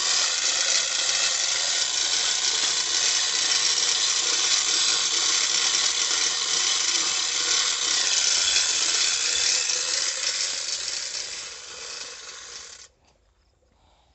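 Steel chains of a chain pulley block rattling and clinking steadily as the hoist is worked to lift a pump out of a borewell. The sound fades and then stops suddenly near the end.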